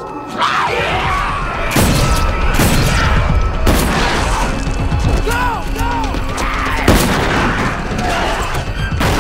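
Horror-film action sound mix: several heavy crashing impacts over a low rumble, with harsh pitched zombie shrieks and snarls rising and falling around the middle, under a music score.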